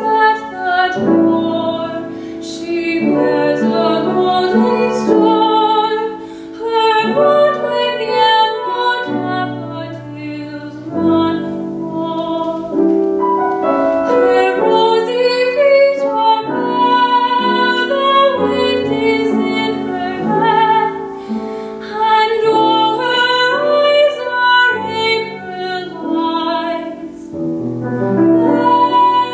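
A woman singing a classical art song in a trained, operatic style, with grand piano accompaniment.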